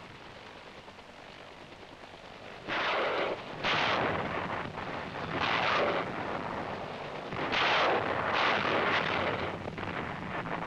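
Helicopter gunship rocket fire and explosions. After about two and a half seconds of low rumbling noise, comes a run of about five sudden blasts, each lasting around half a second.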